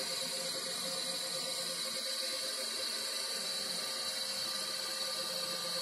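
TIG welding arc burning steadily as filler rod is fed into the puddle: an even hiss with a faint steady tone beneath it.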